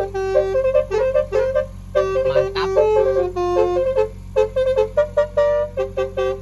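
Basuri V1 telolet bus horn, a multi-tone electric air horn, playing a rapid tune of short notes on a few pitches, with brief breaks about two and four seconds in.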